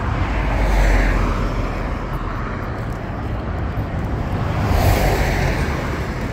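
Road traffic passing close by: a steady rumble of vehicles that swells as one passes about a second in and again as a box truck goes by about five seconds in.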